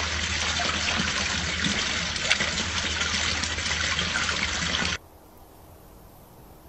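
Water splashing steadily from a small garden fountain, over a steady low hum. It cuts off abruptly about five seconds in, leaving only a faint hiss.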